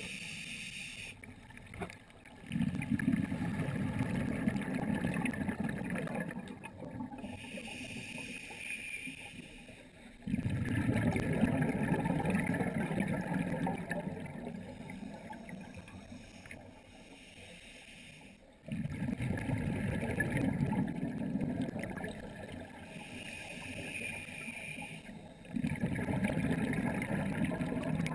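Scuba diver breathing through a regulator underwater, about every eight seconds: a hissing inhale, then a sudden rush of exhaled bubbles that fades over several seconds. Four exhalations are heard.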